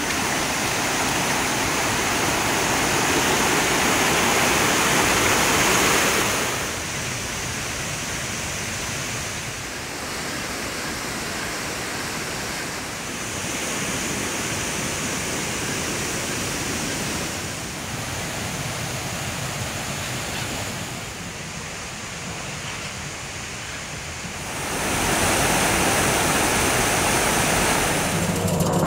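Steady rush of fast-flowing water, a muddy creek running over rocks. It steps up and down in level several times, loudest in the first six seconds and again in the last few.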